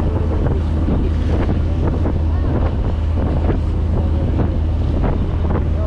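A boat's engine droning steadily under the rush and splash of churning wake water alongside the hull, with wind buffeting the microphone.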